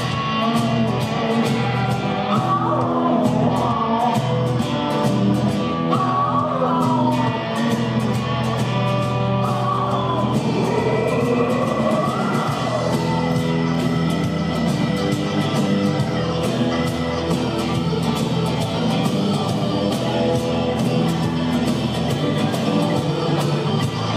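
Live blues-rock band playing with a steady beat: a man singing with sliding, wavering pitch over acoustic guitar and keyboards through about the first half. After that the vocal drops out and the band plays on, with a held high note for several seconds.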